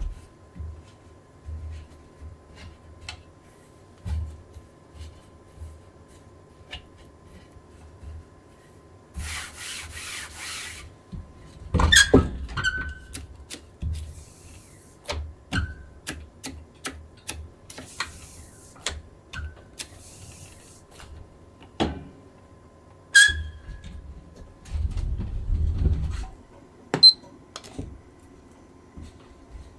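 Work sounds from hand silkscreen printing: scattered sharp clicks and knocks of tools and the press being handled, a scraping or rubbing sound lasting about a second and a half about a third of the way in, and a low rumble near the end.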